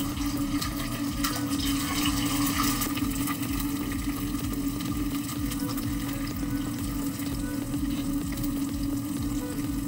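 Eggs sizzling in a stainless steel fry pan on a gas burner, a steady crackling hiss, with a constant hum underneath.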